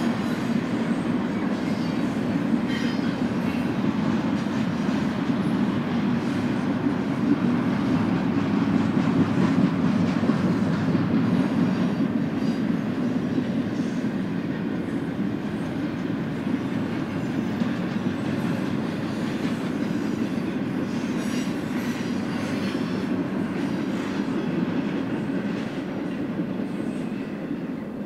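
Double-stack intermodal train's well cars rolling past: a steady rumble of steel wheels on rail, easing off near the end.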